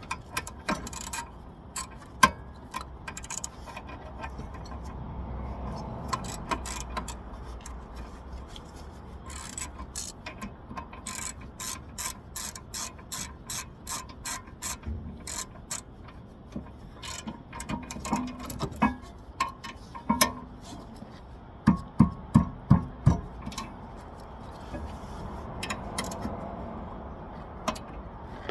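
Hand ratchet wrench clicking in runs as bolts on a car's rear brake assembly are turned and snugged, with a quick series of sharp metal knocks a little past the middle, over a steady low rumble of traffic.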